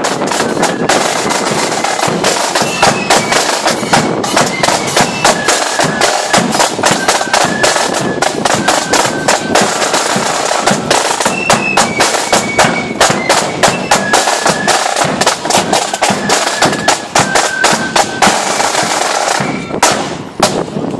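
Marching band playing: many snare side drums beating rapidly, with a bass drum and cymbals, under a high stepping melody on wind instruments. The melody stops and the drumming thins out near the end.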